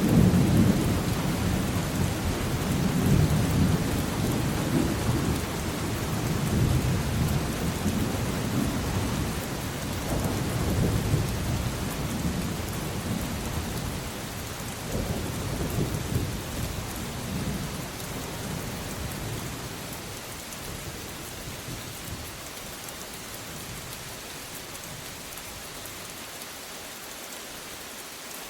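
Steady rain falling with rolling thunder rumbling low underneath; the thunder fades away over the second half, leaving the rain hiss alone.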